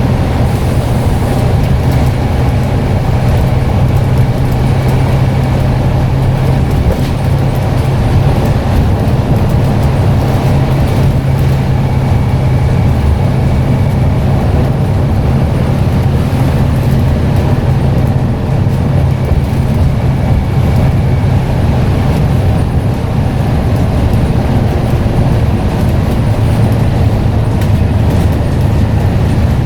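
Scania N94UD double-decker bus engine running steadily under way, with a loud low drone and road noise. A faint high turbo whistle comes and goes.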